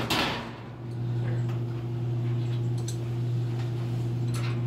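A steady low hum, with a few faint ticks scattered through it.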